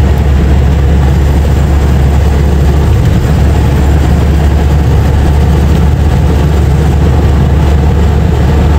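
Steady engine and road rumble inside a moving vehicle's cabin while it drives along a highway at speed.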